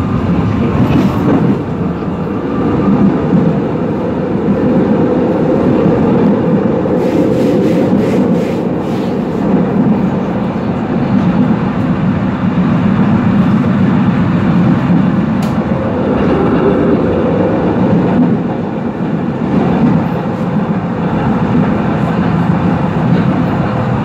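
Düwag N8C-NF articulated tram running along its line, heard from on board: a steady rumble of wheels on rails and running gear, with a few sharp clicks about seven to nine seconds in.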